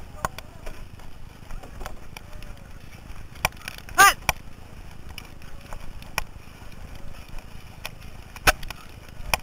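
Paddling in a four-person racing canoe: paddle shafts knock irregularly against the hull's gunwales and water splashes with the strokes, over a low wind rumble on the microphone. A short, loud, pitched sound cuts in about four seconds in, and a sharp knock comes near the end.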